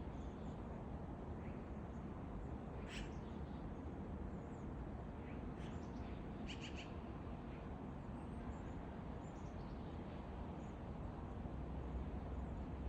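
Small songbirds chirping here and there in winter woods, with a quick run of four or five notes about halfway through, over a steady low outdoor rumble.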